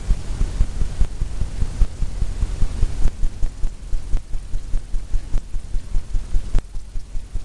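Paint brush tapping against a stretched canvas, a quick run of soft low thumps at about four to five a second, with a few sharper knocks among them.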